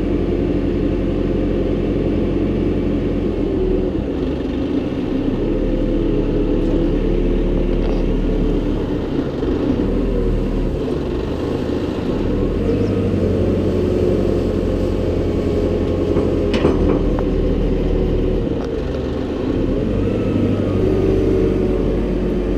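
JCB 541-70 Agri Pro telehandler's diesel engine running steadily while the loader boom and bucket work, its pitch shifting up and down a few times. A single sharp click sounds about two-thirds of the way through.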